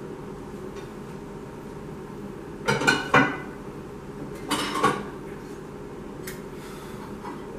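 Dishes and pans clattering as they are handled at the kitchen counter, in two short bursts about three seconds in and again near five seconds, over a steady low hum.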